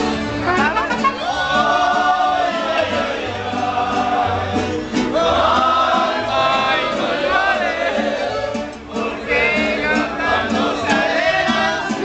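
A live mariachi band plays at close range, with trumpet, singing voices and a bass line underneath.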